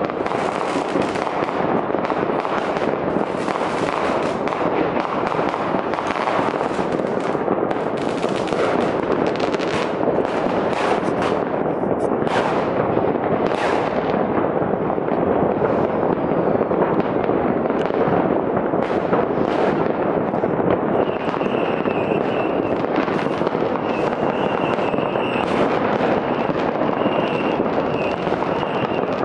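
Many fireworks and firecrackers going off all over a city at once, heard from a distance: countless bangs and crackles overlapping into one unbroken din, with sharper cracks standing out throughout.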